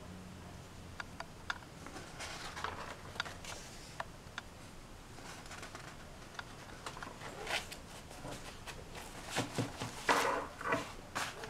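Pages of an old newsprint magazine being turned and handled: dry paper rustling with small clicks, loudest near the end as the next issue is brought up.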